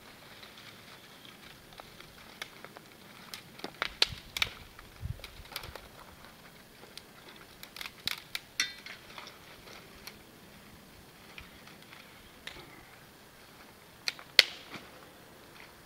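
Dry sticks snapping as they are broken by hand, a sharp crack every few seconds with the loudest near the end, between lighter rustling and small clicks of wood being handled.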